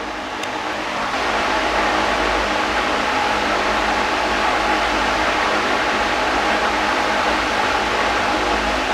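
Steady airy whirr of a fan-type machine running, with a faint hum; it grows a little louder about a second in.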